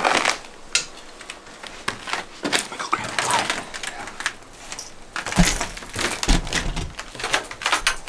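A house door opened and gone through, with a run of clicks, knocks and rustles of gear and footsteps, and two heavier dull thumps about five and a half and six and a half seconds in.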